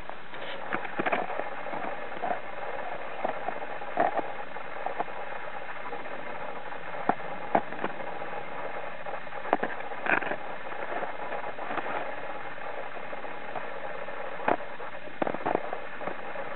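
Steady hiss with a faint mechanical hum from a handheld camera, broken by scattered soft clicks and taps of handling noise as it pans.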